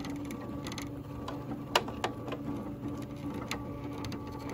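SWF MAS-12 embroidery machine running a design trace: the cap frame is driven around the design outline with a motor hum that stops and starts again, light mechanical ticking, and two sharp clicks near the middle.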